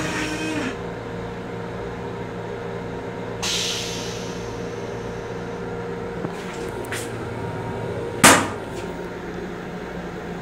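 Steady hum inside the restroom of an LIRR M7 electric railcar, with a short hiss about three and a half seconds in and a couple of light clicks. About eight seconds in comes one sharp loud bang, fitting the plastic toilet lid being dropped shut.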